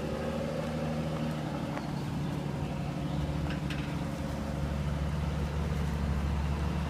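Truck engine running at low speed while slowly manoeuvring a boat trailer, a steady low hum with a few faint clicks.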